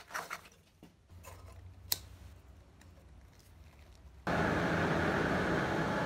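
Small clicks and handling noises while the coal forge fire is lit, then about four seconds in the forge's air blower comes on abruptly: a steady rush of air with a faint whine, feeding the fire.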